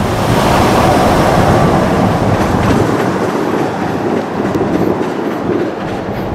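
Loud, steady rumbling noise of a vehicle passing close by, easing slightly toward the end.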